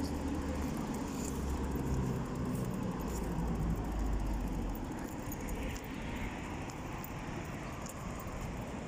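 Road traffic noise, with a low vehicle rumble that fades about five seconds in.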